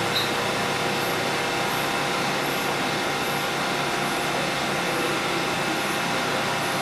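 Mazak Integrex 400-III ST CNC turning center machining a part under flood coolant: a steady hiss of coolant spray over the machine running.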